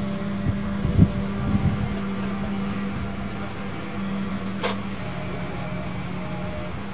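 Mobile crane's diesel engine running steadily while holding and swinging a suspended load, a constant low hum. A few low thumps come about a second in, and a single sharp click near the end.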